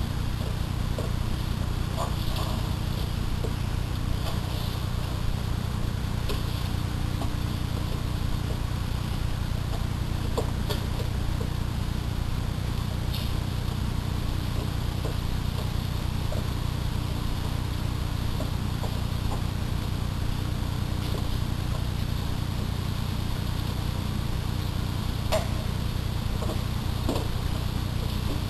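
A steady low electrical hum on the audio line, with a few faint scattered clicks and short chirps over it.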